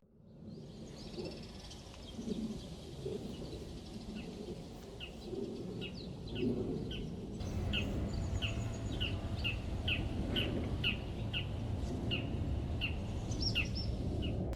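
A small bird calling: a short, falling chirp repeated about twice a second, starting a few seconds in, over a steady low background rumble.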